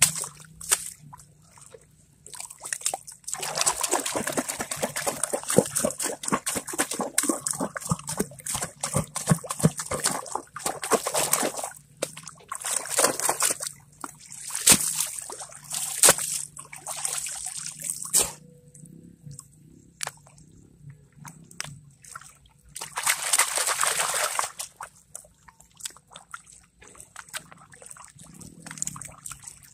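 Water splashing and sloshing in irregular bursts as a mesh sieve of gravel is shaken and dunked in shallow water, washing the material for gold, then water lapping as sand is swirled in a gold pan. The splashing drops away for a few seconds past the middle and comes back briefly once.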